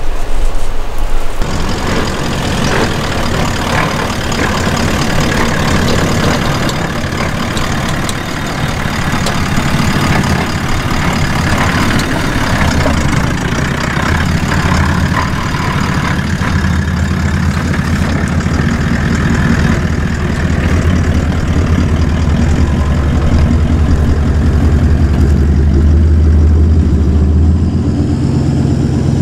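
Toyota LandCruiser 70 Series four-wheel drive's engine running at low revs as it crawls over a rutted dirt track, its low hum growing stronger from about halfway through. Before the engine sound comes in, a second or so of wind and water noise.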